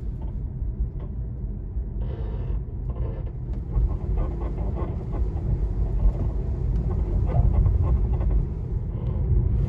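Tesla Model 3 Performance suspension creaking and squeaking in short bursts over a steady low rumble, the squeak the owner traces to worn front control arms (Querlenker).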